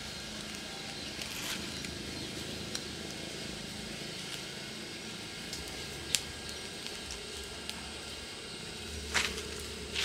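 Small fire of dry leaves and sticks crackling quietly, with a few sharp pops; the loudest comes about six seconds in and another near the end. Dry leaves rustle as more are fed into the fire.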